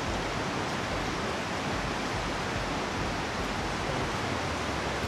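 Rushing creek, whitewater tumbling over rocks in a steady rush.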